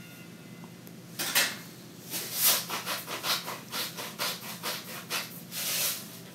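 Range hood duct cover sections scraping and rubbing as they are slid apart and handled: a run of irregular scrapes and rustles, loudest about two and a half seconds in and again near the end.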